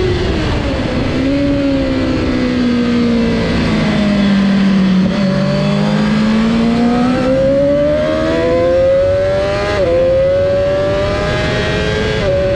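Honda CBR1000RR-R Fireblade's inline-four engine under race riding. Its note falls as the bike slows through a corner in second gear, then rises hard under acceleration. Two quick upshifts cut the note, into third about ten seconds in and into fourth near the end.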